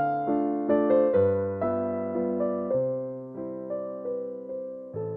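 Background intro music: a keyboard melody of single notes, each struck and then fading away.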